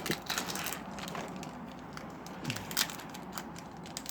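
Foil booster pack wrapper being crinkled and torn open by hand, a run of irregular sharp crackles.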